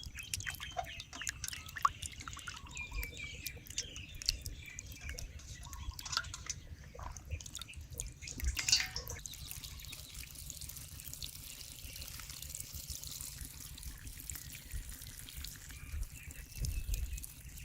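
Water dripping and trickling, with scattered small clicks and splashes and a cluster of them about eight to nine seconds in.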